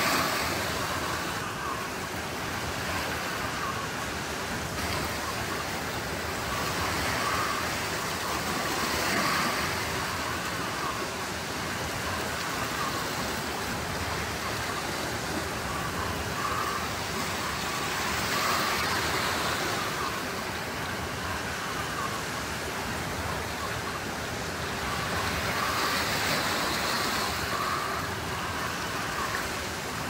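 Small sea waves washing up and draining back over a pebble beach, a steady wash that swells every eight or nine seconds as each wave comes in.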